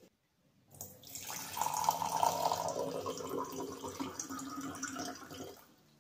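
A drink being poured into a glass tumbler: a steady splashing stream that starts about a second in and stops just before the end.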